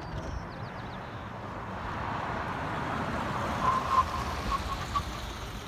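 2025 Ram 1500 Rebel pickup, with its 3.0-litre twin-turbo Hurricane straight-six, driving through a cone course and passing close by, its engine and tyre noise growing louder as it nears.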